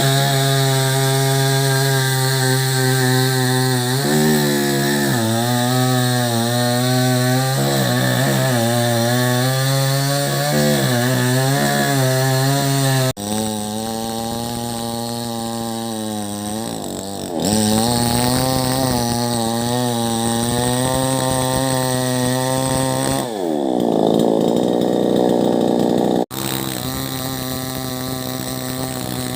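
Chainsaw engine running hard and cutting into wood, its pitch repeatedly dipping and wavering as the chain loads up in the cut. The sound jumps abruptly twice, about 13 and 26 seconds in.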